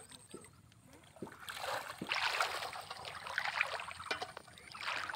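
Shallow water sloshing and trickling as someone wades and works their hands through it, starting about a second and a half in.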